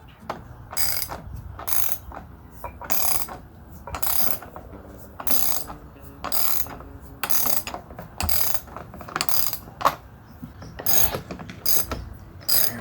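Hand ratchet wrench tightening a nut or bolt: about eleven back-and-forth strokes, one a second, each a quick run of pawl clicks.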